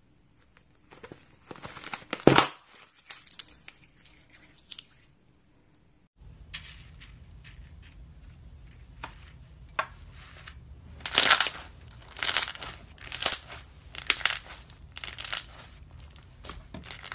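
Hands squeezing and pressing slime, with crinkly crackling. First clear bubbles are pressed between the fingers, with one loud crackle about two seconds in. Then blue slime full of foam beads crackles in bursts about once a second over a low steady hum.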